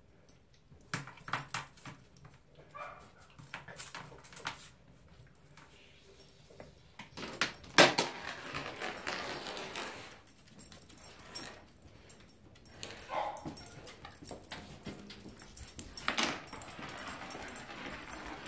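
Small spaniel-mix dog's claws clicking and scrabbling on tile and wooden floors, with knocks and rattles of the leash she pulls off its hook and carries. A single sharp knock about eight seconds in is the loudest sound.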